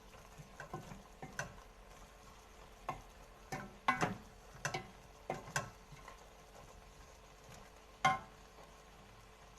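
A spoon stirring chopped onion in a cooking pot, knocking and clinking against the pot in about ten irregular strokes, the loudest about four and eight seconds in.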